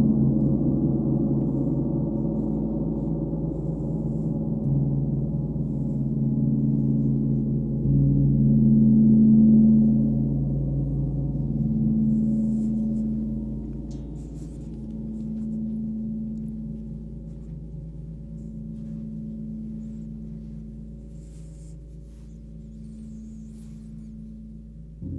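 Large hanging gong rubbed and struck with soft felt mallets: a deep, sustained drone that swells and fades in slow pulses every few seconds. It builds again about eight seconds in, then slowly dies away as it rings out.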